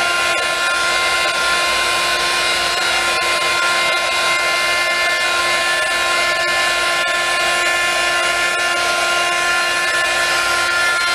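Handheld heat gun blowing steadily, a loud rush of air over a constant fan-motor whine, as it pushes alcohol ink across the wet epoxy of a spinning tumbler.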